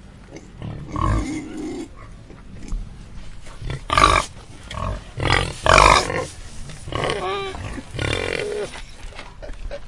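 Angry pigs grunting and squealing in a string of loud, irregular outbursts, the loudest about four and six seconds in.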